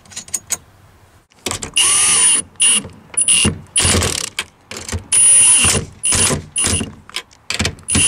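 Red cordless power driver running the tow mirror's new mounting nuts onto its studs, in about ten bursts of varying length with a steady high whine, starting about a second and a half in.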